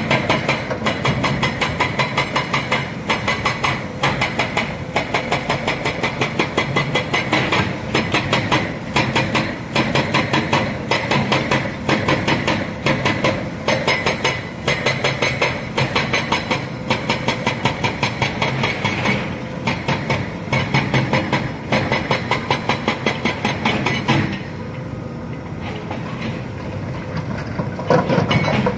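Hitachi Zaxis 210F excavator working, with a rapid, even clattering pulse that eases off for a few seconds near the end and then picks up again.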